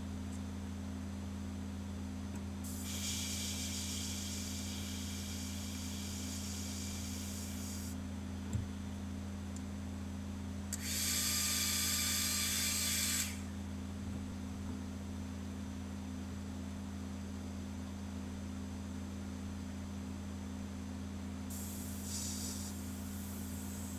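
Airbrush spraying lure paint in three spells of high-pitched hiss, the longest about five seconds, over a steady low hum.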